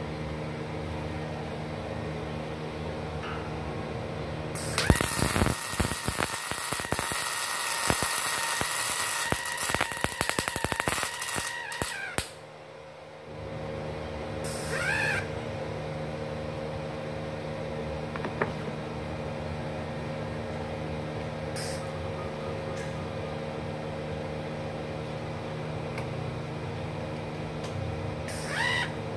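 MIG welding arc on steel, fed with solid copper-coated wire at raised amperage. The arc crackles for about seven seconds, starting about five seconds in, over the welder's steady hum. It cuts off near the middle and the hum resumes.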